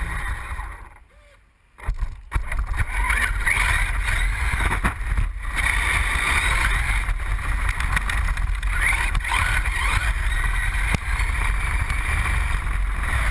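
Brushless electric motor of a Traxxas Summit RC truck (Hobbywing 150A ESC, 1800kv, 6S) whining up and down in pitch with the throttle over the rumble of tyres on gravel, heard from a camera mounted on the truck. It drops off almost to nothing about a second in, then picks up again.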